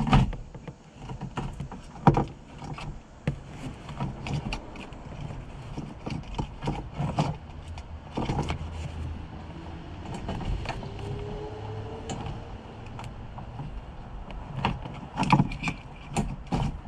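Irregular clicks, knocks and rattles of a removed car fuel pump assembly and its hoses being handled, over a low steady rumble, with a sharper knock about two seconds in and a cluster of knocks near the end.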